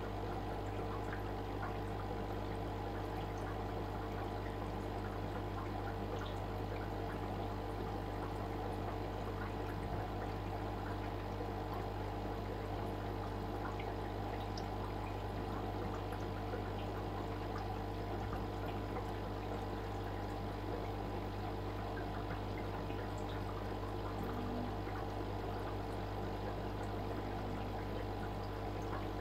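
Steady trickle of running aquarium water over a constant low hum, unchanging throughout.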